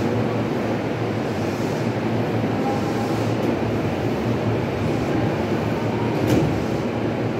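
Two coupled JR East electric commuter trains, an E233 series and an E231 series, standing at the platform with their onboard equipment running: a steady low noise with a single sharp click about six seconds in.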